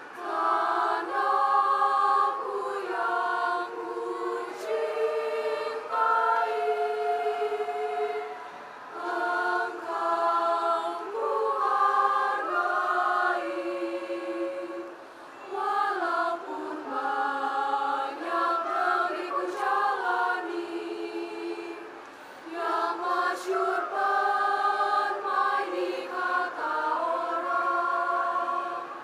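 Youth choir of girls' and boys' voices singing in several-part harmony, unaccompanied, in phrases with brief pauses for breath between them.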